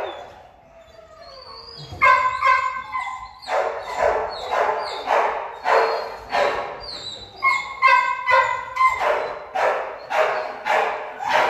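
Shelter dogs barking over and over, about two barks a second, with some higher, drawn-out yelps mixed in.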